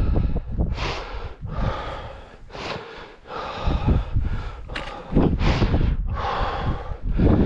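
A hill walker's heavy breathing, rasping in and out at about one breath a second under the strain of the climb, with wind rumbling on the microphone.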